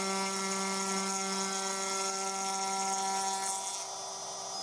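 DIY CNC router's spindle running with a steady whine made of several fixed tones, over a high hiss that fades out near the end.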